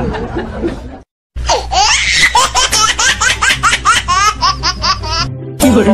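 High-pitched rapid laughter: a run of short rising 'ha' bursts, about four to five a second. It comes in after a sudden cut to silence about a second in and stops abruptly near the end.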